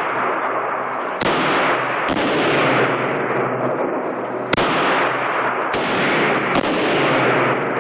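AR-15 rifle fired semi-automatically: five single shots at uneven spacing, two close together about a second in, then a pause, then three more, each shot followed by a long fading echo.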